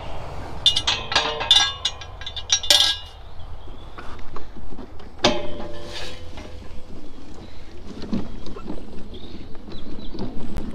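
Galvanised steel field gate being opened by hand, its bars and latch clinking and rattling in a quick run of metallic knocks over the first three seconds, then one ringing clang about five seconds in.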